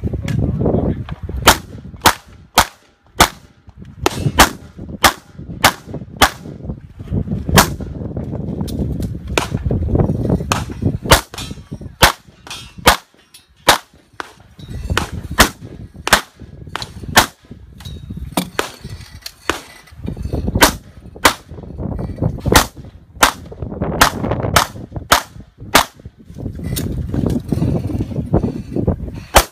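Competition pistol gunfire: dozens of sharp shots, mostly in quick pairs, fired in strings separated by short pauses, with a low rumble between the strings.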